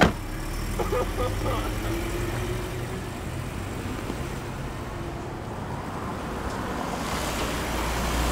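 Cars running in traffic, heard from inside a stopped car: a steady low engine rumble, with the road noise swelling near the end.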